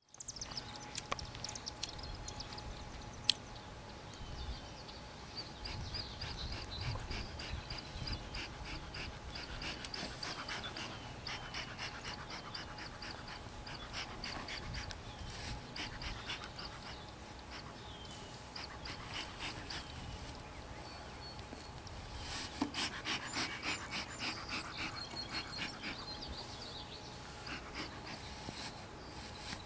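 Bee smoker's hand bellows being pumped over and over while the smoker is being lit, each squeeze a breathy puff of air, quickening to about two or three puffs a second near the end. One sharp click comes about three seconds in.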